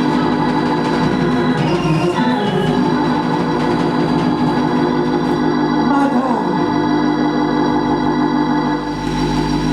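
Organ playing sustained, held chords.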